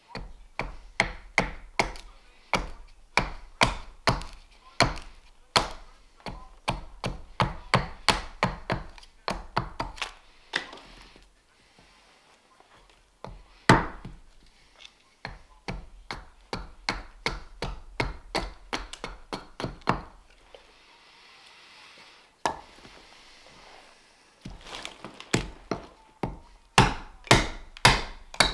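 Small carving axe chopping into a green-wood spoon blank on a wooden chopping block: a quick series of sharp strikes, about two a second. The strikes break off twice for a few seconds, once around a third of the way in and again about two-thirds in.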